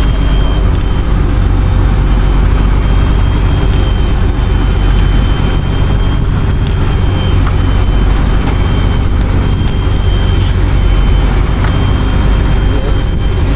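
An engine running steadily at a constant speed, a loud low drone with a thin high whine held on one note.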